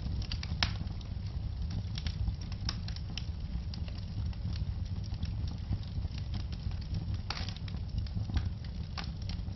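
Wood fire crackling in a fireplace: irregular sharp pops and snaps over a steady low rumble of burning. There is a louder pop about half a second in and a quick run of crackles about seven seconds in.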